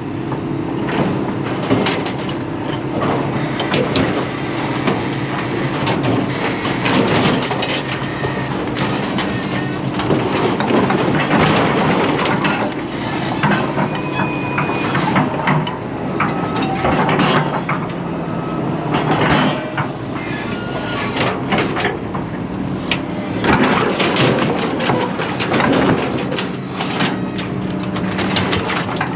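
Heavy metal scrap being dragged and dropped off a trailer, with irregular scraping and clanking and a brief high metallic ring about halfway through, over an engine running steadily.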